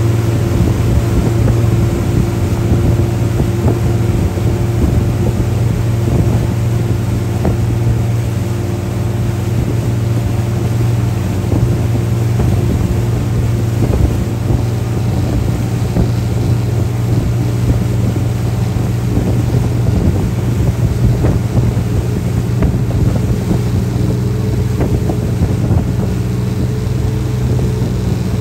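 Motorboat engine running steadily at towing speed, a constant low drone, with the wake's churning water and wind buffeting the microphone.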